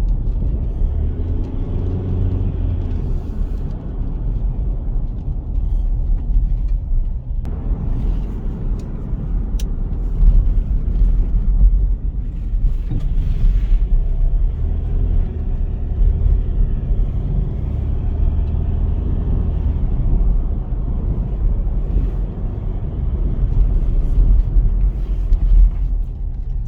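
A car driving, with a steady low rumble of engine and road noise and faint engine tones that rise and fall.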